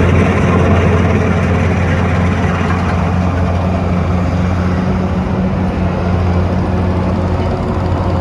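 Kubota DC105X rice combine harvester's diesel engine running steadily with a deep, even hum.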